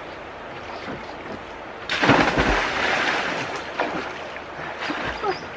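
A person jumping into a creek: one sudden, loud splash about two seconds in, then water churning and sloshing that fades over the next few seconds.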